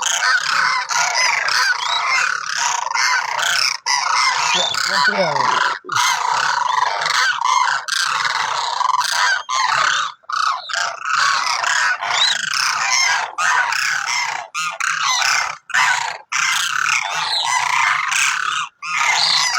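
A flock of demoiselle cranes calling together: a dense chorus of many overlapping calls, broken by a few brief, sudden gaps.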